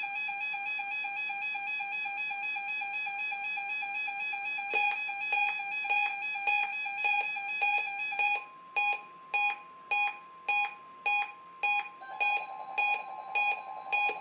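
Weather radio sounding its alert alarm for an incoming required weekly test: a steady high electronic tone, joined about five seconds in by sharp beeps about twice a second. From about eight seconds the tone pulses on and off with the beeps, over a second steady tone.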